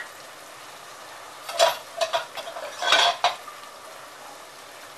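A spoon clinking against metal cookware: a few quick ringing clinks about a second and a half in, then a longer cluster around three seconds in. Under them runs a steady faint sizzle of onion-tomato masala frying in a pot.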